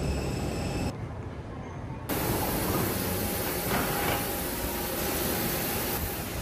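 Airport outdoor ambience: a steady rushing noise with a faint high, steady whine, dropping much quieter for about a second near the start before resuming.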